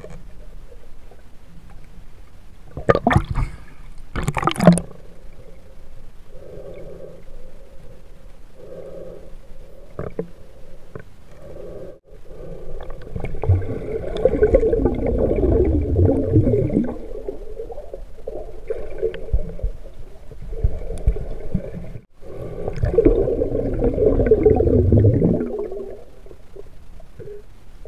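Muffled underwater sound from a camera held below the river's surface: gurgling and rumbling of moving water and bubbles. There are two sharp bursts about three and four and a half seconds in, and two longer swells of rumbling later on.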